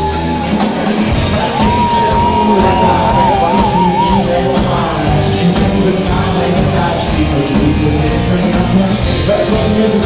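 Live rock band playing, electric guitars, drums and keyboard under a male singer, amplified in a hall. A long held high note comes in about a second and a half in and wavers before it stops near the four-second mark.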